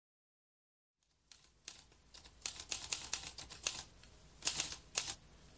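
Typewriter typing: a second of silence, then irregular runs of sharp keystroke clicks, loudest near the end, as a recording's intro sound effect.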